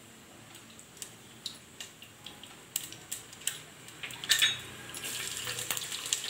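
Mustard and cumin seeds spluttering in hot oil in a steel pot, with scattered sharp pops. About four seconds in, chopped garlic goes into the oil and it breaks into a louder, steady sizzle.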